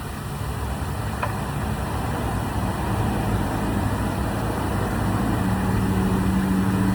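Steady engine-like mechanical rumble, like a vehicle running nearby, growing slightly louder, with a low steady hum coming in strongly near the end.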